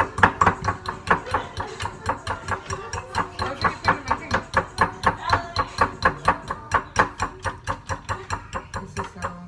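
A utensil beating cake batter in a mixing bowl, clicking against the side in a quick, even rhythm of about five strokes a second.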